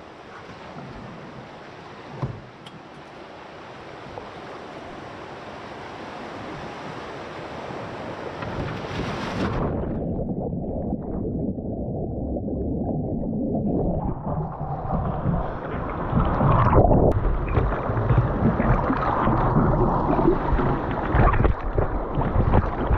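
Rushing whitewater of a river rapid, growing steadily louder as the canoe runs down into it, with wind on the microphone. The sound turns dull and muffled for a few seconds about ten seconds in, then comes back fuller and rougher.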